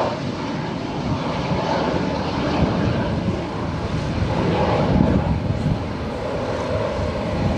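Aircraft engines running: a steady, loud rumble, heaviest in the low end, from a large plane passing at an airport.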